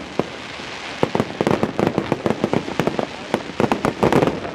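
Aerial fireworks display going off: after a short lull, a rapid run of sharp bangs and crackles from shell bursts begins about a second in and is thickest near the end.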